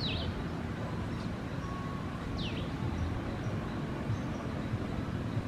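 Saddleback tamarins giving two short high chirps, each falling in pitch, about two and a half seconds apart, over a steady low rumble.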